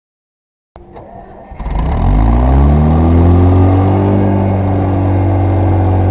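The repowered skid steer's carbureted engine starts: a short, quieter bit of cranking, then it catches and quickly rises in speed. It then runs steadily at a fast idle.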